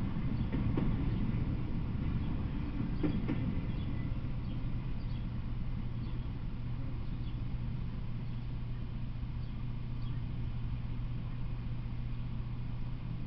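A freight train rolling away down the track: a low rumble with a few sharp wheel clacks in the first three or four seconds. It then settles into a steady low hum.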